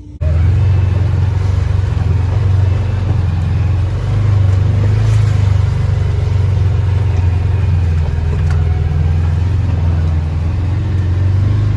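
An ATV engine runs steadily close to the microphone, as when riding, with a loud low drone.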